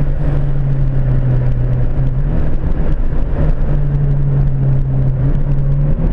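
Turbocharged 1.8 Zetec four-cylinder engine of a Ford Fiesta XR2i heard from inside the cabin at speed, a steady engine drone over road and wind noise. Its pitch dips briefly about two seconds in and shifts again near the end.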